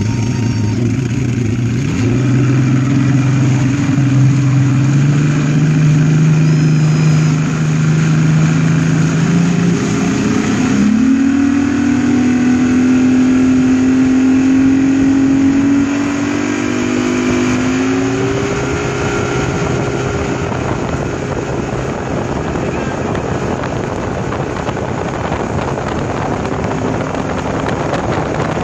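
1989 Mercury Black Max XR4 150 hp V6 two-stroke outboard running at wide throttle as the bass boat accelerates. Its pitch climbs in two stages over the first twenty seconds. Then wind and water rush takes over the sound at speed.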